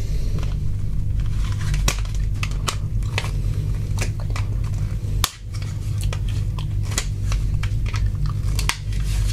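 Plastic clips and housing of a phone's LCD display module being forced apart by hand: a run of irregular clicks and cracks, one sharp crack about five seconds in and a quick cluster near the end, over a steady low rumble.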